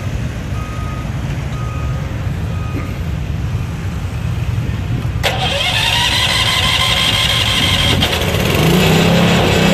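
The gas engine of a DR K34 kinetic log splitter being started. A sharp click comes about halfway through, then the engine note builds and catches, settling into a steady run near the end.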